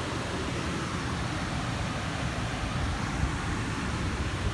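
Steady outdoor background noise: an even low rumble with hiss above it, with no single event standing out.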